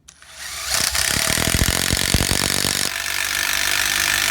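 Ridgid 12V palm impact screwdriver driving a long 1/4" screw into wood: its motor spins up, then rapid hammering from the impact mechanism. About three seconds in, the hammering eases and the tool keeps running steadily.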